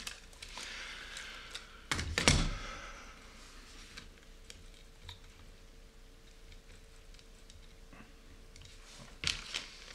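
Small metal RC car parts being handled and fitted by hand: scattered light clicks and taps, with a louder knock about two seconds in, when the aluminium chassis is set down on the cutting mat, and a few more clicks near the end.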